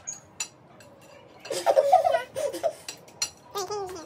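Candy canes clicking and clattering against plates as they are hooked and dropped: a scattering of sharp clicks, with a burst of giggling laughter about a second and a half in and a short laugh near the end.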